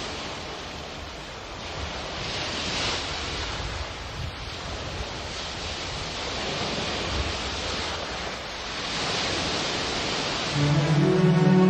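Rushing sound of surf, swelling and fading in slow waves. Music with steady held tones comes in near the end.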